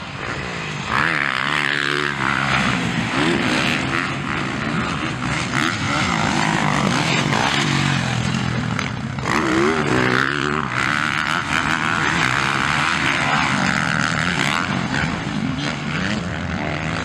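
Motocross dirt bike engines revving hard as the bikes race around the track, the pitch climbing and dropping over and over with throttle and gear changes.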